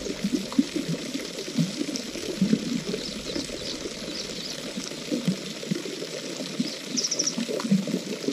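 Water trickling and splashing lightly, with small birds chirping; a quick run of high chirps comes near the end.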